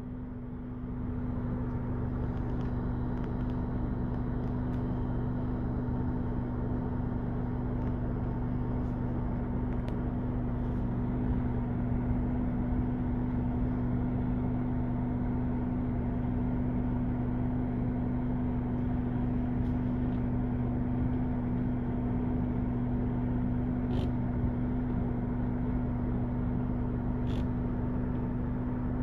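Steady low mechanical hum holding two even tones throughout, with two small clicks near the end.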